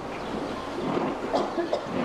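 Dense crowd murmuring, with scattered voices standing out about halfway through.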